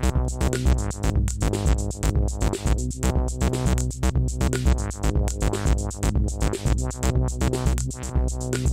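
Buchla-format modular synthesizer patch sounding through a four-channel morphing mixer: a steady pulsing electronic rhythm of percussive hits over sustained bass tones. The mix shifts as the mixer's level and CV controls are turned.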